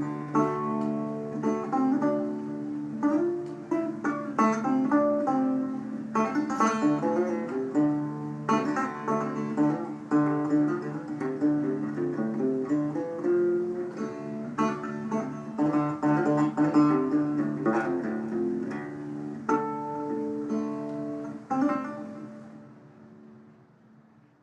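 Guitar playing an instrumental outro of a blues song, picked notes over steady low notes, with a last strike near the end that rings out and fades away.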